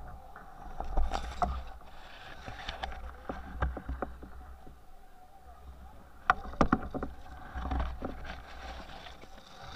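Leaves and branches of bankside brush brushing and scraping against a stern-mounted camera and canoe, with irregular sharp clicks and rustles. The loudest clusters come about a second in and again past the middle, over a low rumble.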